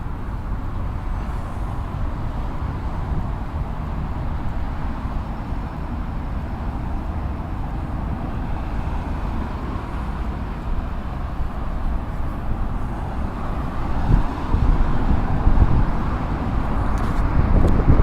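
Steady rumble of road traffic, with wind buffeting the microphone and growing stronger near the end.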